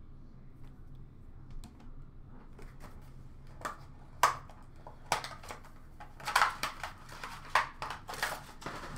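Hands handling trading cards and their plastic holders and packaging: a run of sharp clicks and crinkles, sparse at first and busier in the second half.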